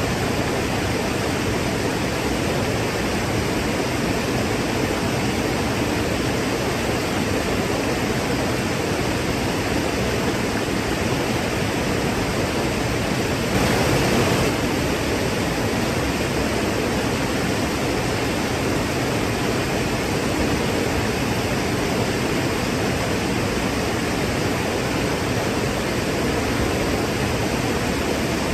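Waterfall: a steady, even rush of falling water, briefly louder for about a second halfway through.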